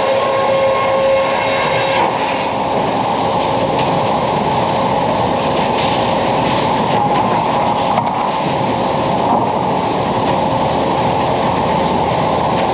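Sawmill band saw head rig running, with its log carriage travelling on its rails: a loud, steady machine noise with a thin steady tone under it and a few faint knocks.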